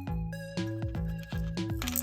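Background music: a bouncy instrumental track with a bass line that steps between notes several times a second over a steady beat.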